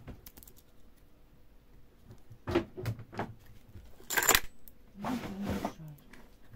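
A metal oil-paint tube being pressed flat between the rollers of a paint-tube squeezer and handled: a few light metallic clicks and crinkles, the loudest a sharp crackle about four seconds in, followed by a short rustle.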